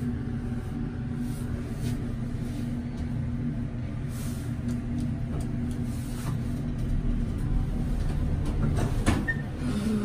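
Elevator car in motion: a steady low hum and rumble from the lift, with a sharp click about nine seconds in.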